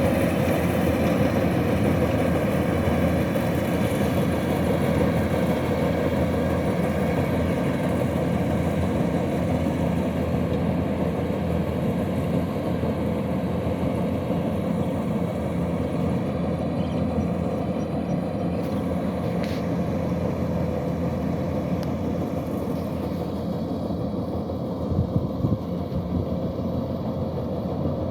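Kubota DC-105X combine harvester's diesel engine running steadily as it works, slowly getting quieter, with a few brief knocks near the end.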